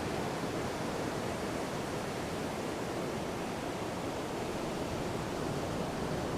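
Sea surf on a beach: a steady rushing wash of breaking waves.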